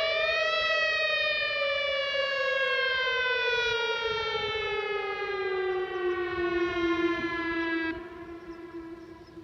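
Whelen Vortex R1 tornado siren wailing: the pitch peaks just after the start, then slides slowly down for several seconds. About eight seconds in it drops suddenly in loudness, leaving a quieter, steady low tone.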